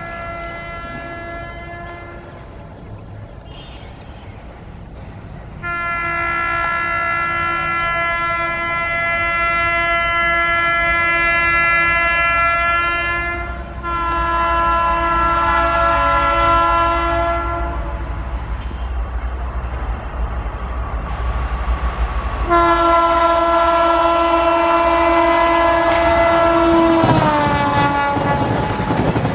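WAP-4 electric locomotive horn sounding in repeated long blasts as an express train approaches at speed: a short blast, then one of about eight seconds, one of about four, and a last one whose pitch drops as the locomotive passes. Then the rush and rumble of the train running by.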